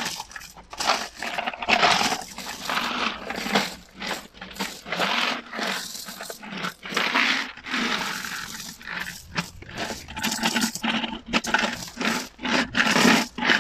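Metal coins pouring and clattering out of a broken-open plastic piggy bank onto a heap of coins in a cardboard box, in irregular bursts as the bank is tipped.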